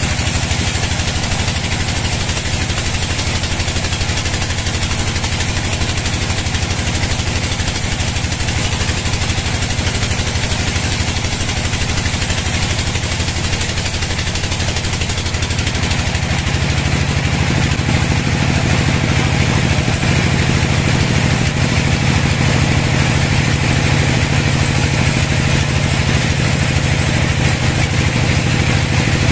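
Band sawmill running and sawing lengthwise through a log: a steady, loud mechanical drone with a hiss of cutting. It grows a little louder about halfway through.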